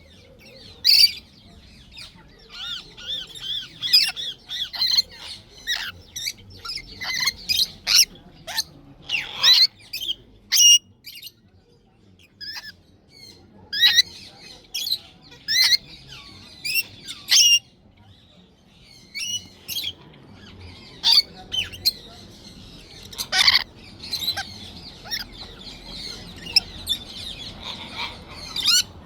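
Lorikeets squawking and chattering: many sharp, shrill calls over a constant high twittering, with a couple of brief lulls.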